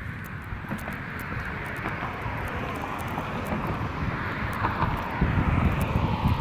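Outdoor wind rushing and buffeting the phone's microphone while walking, with the gusts growing stronger near the end.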